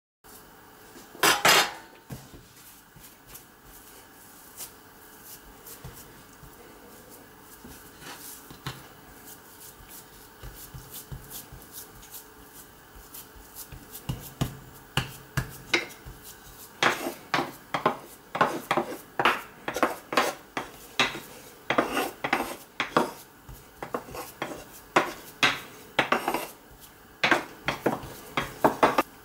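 Kitchen utensils knocking and scraping against dishes or a pan, with one loud clatter about a second in and a steady run of repeated strikes, roughly two a second, through the second half.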